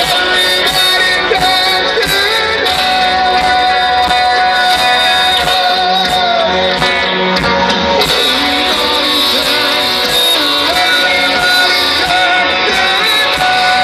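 Heavy metal band playing live at full volume: electric guitars holding sustained notes over drums with frequent cymbal hits, with some singing.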